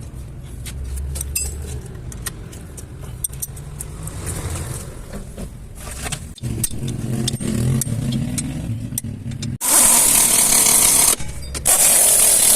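Workshop noise: a low rumble with light metallic clinks, then two loud bursts of steady hissing noise, each over a second long, near the end.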